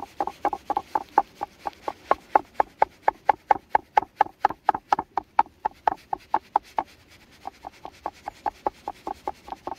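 Kitchen knife chopping boiled nettles on a wooden cutting board: rapid, even knocks of the blade on the wood, about five a second, with a short pause about seven seconds in, after which the strokes are softer.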